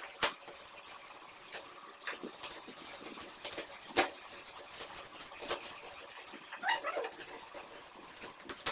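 Shiny metallic gift wrapping crinkling and rustling as it is torn open by hand, in scattered sharp crackles with the loudest about halfway through. A short high-pitched vocal sound comes about two-thirds of the way through.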